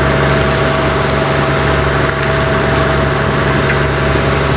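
Fishing boat's engine running steadily with a constant low drone.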